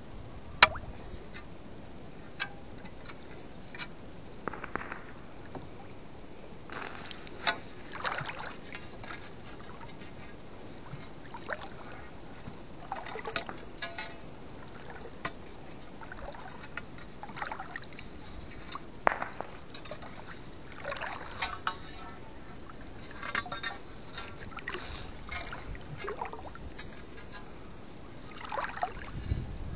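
Shallow water splashing and sloshing in short, irregular bursts as a fish spear is worked through it, with a few sharp clicks; the loudest click comes about half a second in.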